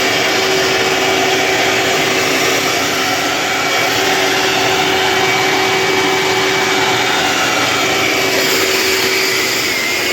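Shop vac running steadily with a constant whine, sucking up coal ash.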